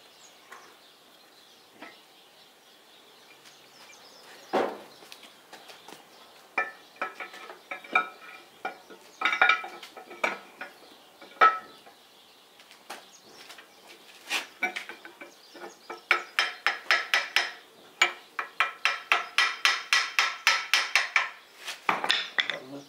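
Hammer tapping on the camshaft of a D115 tractor engine as it is driven into new camshaft bushings in the block: a few separate sharp metallic strikes, then a fast run of ringing taps, about five a second, over the last several seconds.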